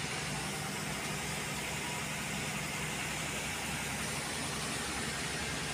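Bus engine and road noise heard from inside the cabin: a steady hum that stays even throughout.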